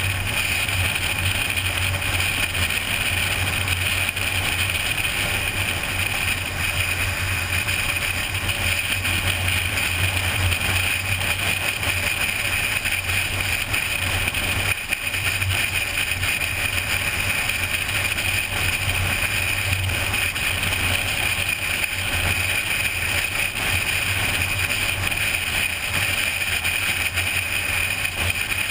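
Car cruising steadily at highway speed: constant tyre and wind noise with a steady low hum underneath, unchanging throughout.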